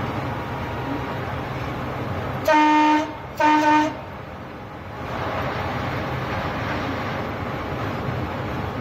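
Train horn sounding two short blasts about a second apart, loud over the steady running rumble of the moving train.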